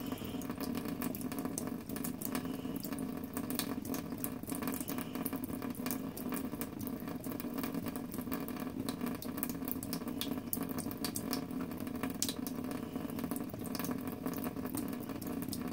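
A thin stream of tap water running steadily from a kitchen faucet into a stainless steel sink, with many small irregular splashing ticks.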